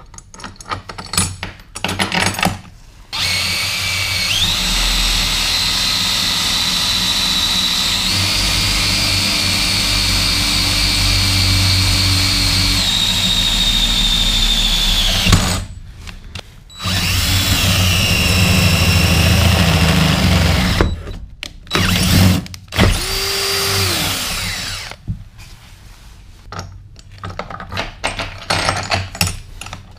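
Cordless drill driving a bolt through a recessed D-ring anchor point, in several runs: a long run of about twelve seconds whose motor whine steps up in pitch and later drops, then a run of about four seconds and two short bursts. Light metal clinks of handled parts near the end.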